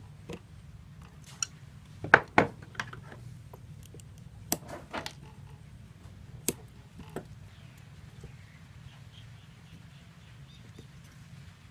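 Scattered sharp clicks and taps of small hand tools, pliers and scissors, against a baseball and the metal cup that holds it while its seams are stitched by hand; the loudest is a pair about two seconds in, and the clicks thin out after about seven seconds. A low steady hum runs underneath.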